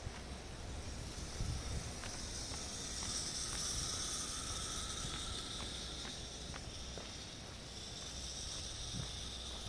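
Outdoor ambience: a steady hiss over a low rumble, with faint light ticks about twice a second, the footsteps of someone walking on paving.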